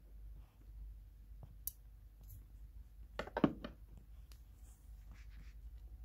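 Faint scattered clicks and scratches on hard plastic, with a short scraping rasp about three and a half seconds in, the loudest sound: a giant water bug gripping a dubia roach against a plastic mesh grid as it feeds.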